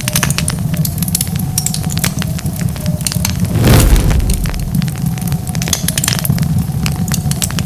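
Wood fire crackling, with frequent sharp pops and snaps over a steady low rumble. About three and a half seconds in, a louder burst of noise lasts about half a second.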